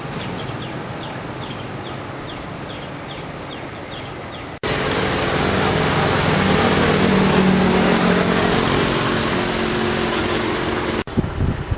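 Outdoor noise with a short high chirp repeating two or three times a second. About halfway in, an abrupt cut brings louder, rushing noise with a steady low hum, typical of a vehicle. Another abrupt cut comes near the end.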